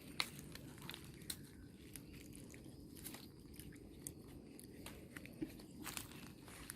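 Faint, irregular small clicks and crunches of a baby monkey biting and chewing rambutan, its peel crackling, the sharpest click just after the start.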